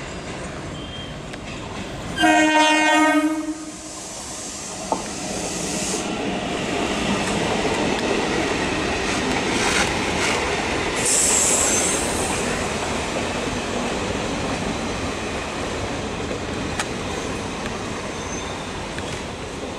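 Electric local train's horn sounding once for about a second and a half, followed by the steady rumble and clatter of passenger coaches running past close by, with a brief high-pitched squeal midway.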